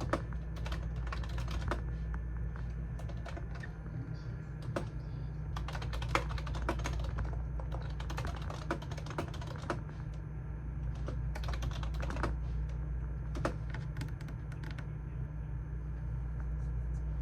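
Typing on a computer keyboard in irregular bursts of quick key clicks with short pauses between them, over a steady low hum.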